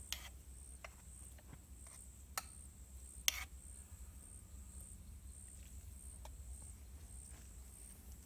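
A spoon clinks and scrapes against the Swedish army mess kit's aluminium pot as cooked buckwheat is served, with a few sharp clicks, the loudest about three seconds in. Behind it an insect chirps steadily: a high, buzzy pulse about twice a second.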